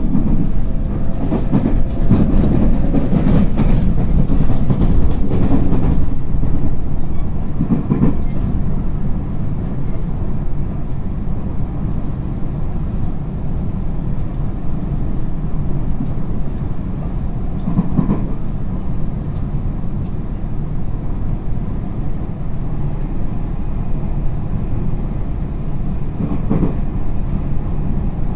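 JR West 225 series 5100 electric train running at speed, heard from on board. A steady rumble of wheels on rail, broken by an occasional knock as the wheels cross rail joints: a few in the first seconds, then about 8, 18 and 26 seconds in.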